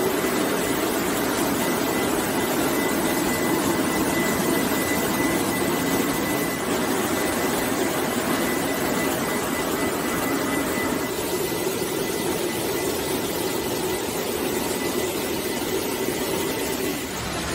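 Steady machine noise of a French fries production line running, from its mesh-belt conveyors and other processing machinery, with a faint steady high whine over it. The higher part of the noise thins a little about two-thirds of the way through.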